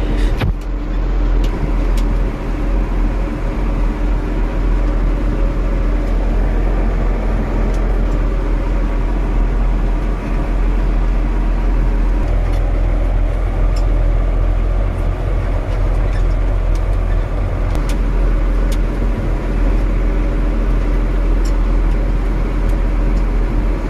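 Tractor engine running steadily with a constant low drone while towing the irrigation sprinkler rig, with a few light clicks and rattles.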